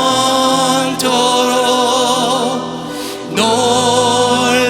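Worship music: voices singing a slow chorus over steady instrumental accompaniment, holding a long note with vibrato, then starting the next phrase about three seconds in.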